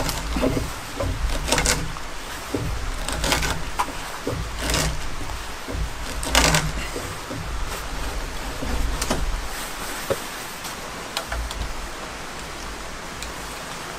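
Hand auger with a wooden T-handle boring into a timber roof pole: a series of short rasps of the bit cutting wood, one about every second and a half, thinning out in the second half, over a low, uneven rumble.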